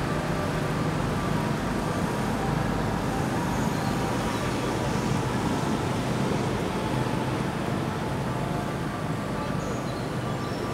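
Steady outdoor background noise with a low rumble, like distant road traffic.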